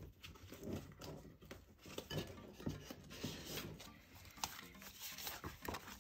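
Sticker books and sticker sheets being handled and leafed through: irregular rustles of paper pages with light clicks and taps, a few sharper ones late on.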